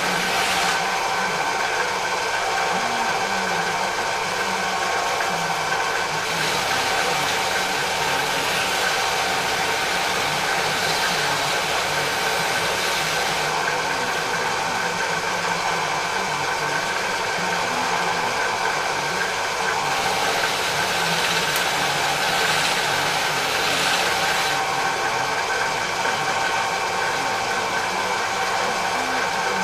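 Bench drill press running steadily, its motor giving a constant whine over a hiss, with a wheel spinning in the chuck for polishing a brass motif. The hiss swells for a few seconds at a time, several times.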